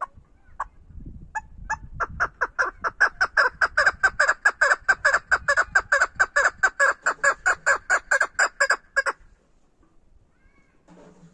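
Caged hen chukar partridge calling: a few separate notes, then a fast, even run of calls at about five a second for some seven seconds, stopping abruptly.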